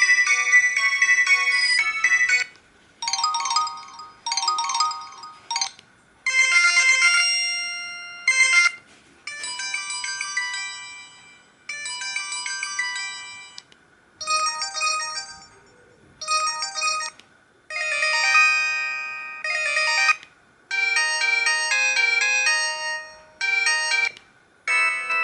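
Samsung SGH-E900 ringtones playing: short electronic melodies of several notes at once, in phrases broken by brief pauses.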